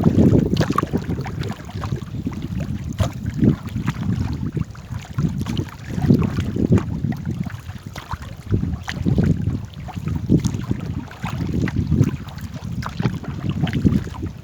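Gusty wind rumbling on the microphone over the water sounds of a small paddled boat, with faint scattered knocks and splashes.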